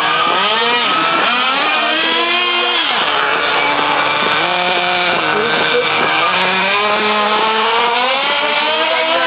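Small two-stroke engines of petrol-powered RC cars running and revving, their pitch rising and falling continually as the throttles are worked. More than one engine seems to be heard at once.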